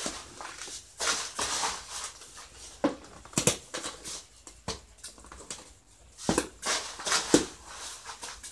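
Wet cement mortar being scooped by hand from a plastic basin and pressed onto a wire-mesh stove frame: a run of short, irregular scraping strokes.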